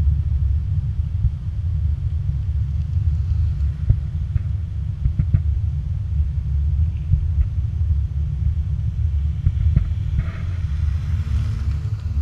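Steady low rumble of wind buffeting a moving GoPro's microphone during a ride along a road, with a few faint clicks and knocks.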